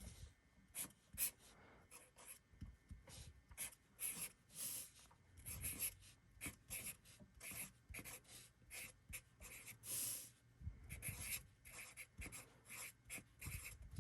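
Handwriting on a paper envelope: faint, scratchy short strokes with brief pauses between words.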